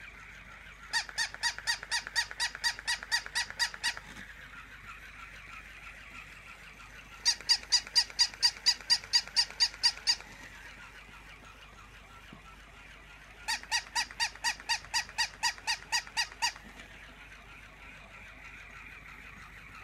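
Battery-operated toy dog giving electronic yapping barks in three runs of about three seconds each, about five quick yaps a second, with another run starting at the very end. Between the runs, a steady whir of its walking motor continues.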